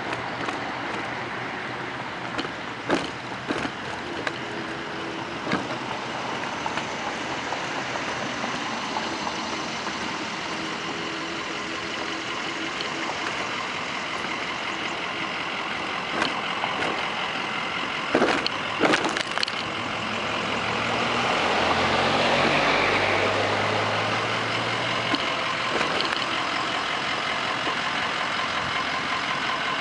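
Steady road traffic noise, with a motor vehicle's engine drone swelling up as it passes close about two-thirds of the way through, the loudest part. A few sharp knocks stand out, near the start and again about 18 to 19 seconds in.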